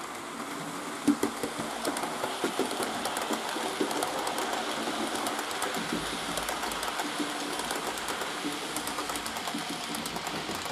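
Model train passing close by, a class 110 electric locomotive hauling couchette, dining and sleeping cars and car transporters: a steady rattle of wheels on the track with many quick clicks over the rail joints, the sharpest click about a second in.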